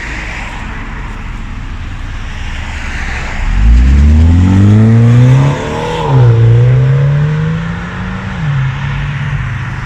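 2020 BMW M135i's turbocharged four-cylinder engine running steadily, then accelerating hard about three and a half seconds in. The engine note climbs, drops sharply at a gear change, climbs again, then falls back and holds steady.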